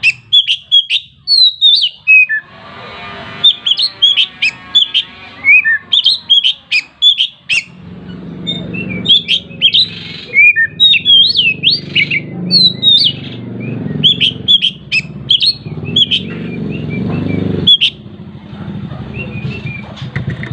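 Oriental magpie-robin (kacer) singing: a rapid run of loud, short whistled and chirped notes that go on throughout. From about eight seconds in there is a steady low rumble beneath the song.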